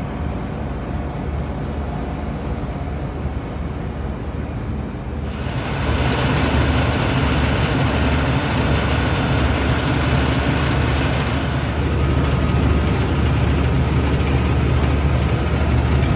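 Commercial HVAC unit running with a steady low hum. About five seconds in, more machinery kicks in, such as the compressor or its fans, and the sound steps up louder with an added rushing hiss, then holds steady.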